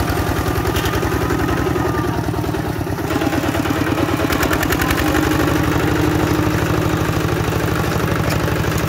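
Kubota bulldozer's diesel engine running with a steady, even beat, growing a little louder about three seconds in and holding there.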